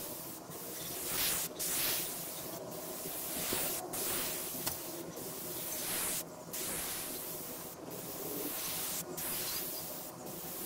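Spray gun hissing as it lays a coat of shellac over a stained wooden dresser top, the spray cutting off briefly about once a second between passes.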